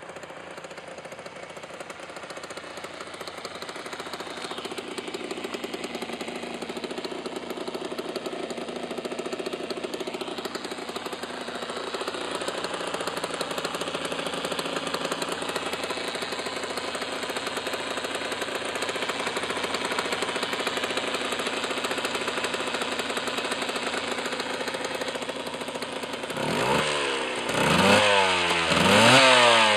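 Aprilia ETX 125's single-cylinder two-stroke engine idling steadily, then revved several times near the end, the pitch rising and falling with each blip of the throttle.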